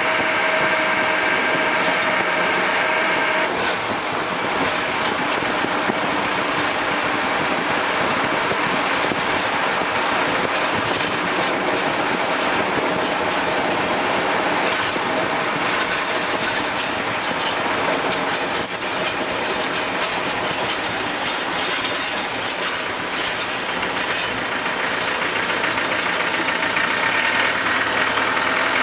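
Land Rover Defender 110 running, a steady mechanical din with many small rattling clicks, and a high whine in the first few seconds that returns near the end. This is the noise the owner finds annoying.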